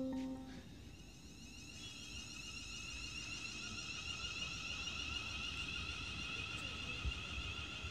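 Class 350 Desiro electric multiple unit pulling into the platform, its traction motors giving a steady high-pitched whine that slowly grows louder as it approaches, over a low rumble.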